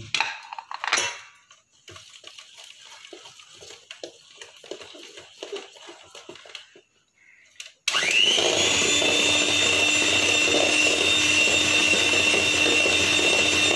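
Faint scrapes and taps as flour and cocoa are spooned into the bowl. About eight seconds in, an electric hand mixer starts with a quick rising whine, then runs steadily at a constant pitch as it beats the chocolate sponge batter.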